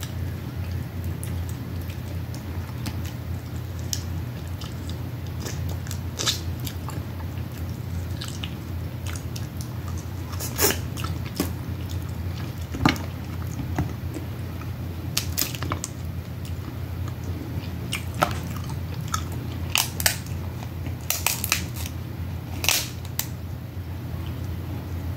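Close-miked eating of snow and Dungeness crab: chewing and mouth smacking, with irregular sharp cracks and crunches of crab shell, over a steady low hum.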